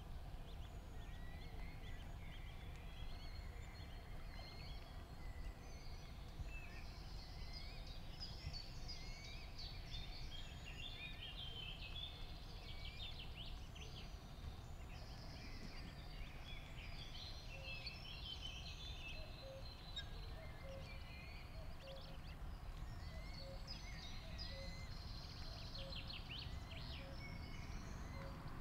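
Birds chirping and calling in quick high notes, over a steady low outdoor rumble. In the second half a faint lower note repeats about once a second.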